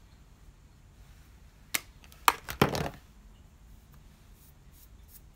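Small plastic makeup items being handled and set down: three sharp clicks about two seconds in, the last running into a brief rattle.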